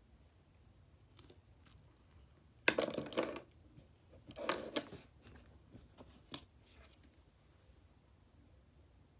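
Makeup items being handled: two short bursts of rustling and scraping about three and four and a half seconds in, with a few light clicks around them.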